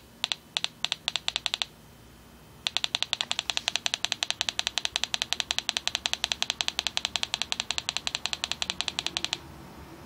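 Small speaker clicking once per pulse of a homemade breadboard clock circuit, its rate set by a 100k potentiometer. The clicks speed up over the first couple of seconds, pause briefly, then run as a steady fast ticking of about ten a second before stopping shortly before the end.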